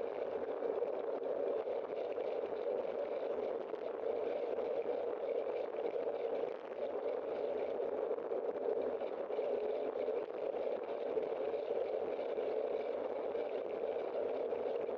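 Steady rushing of wind on the microphone and bicycle tyres rolling on the road while riding, with a brief dip in level about six and a half seconds in.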